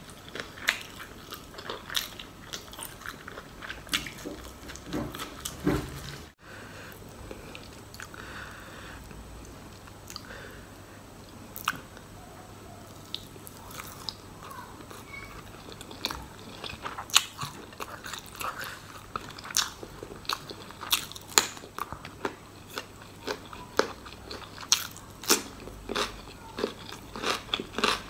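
Close-up chewing of crunchy deep-fried pork larb balls: crisp crunches and mouth sounds, with a short break about six seconds in, the crunching growing louder and more frequent in the second half.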